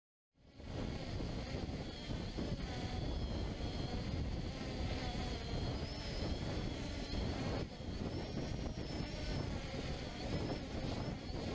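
MJX Bugs 2W quadcopter's motors and propellers buzzing in flight, with high whines wavering in pitch over a low rumble, heard up close from a GoPro dangling on its wire beneath the drone. The sound cuts in suddenly about half a second in.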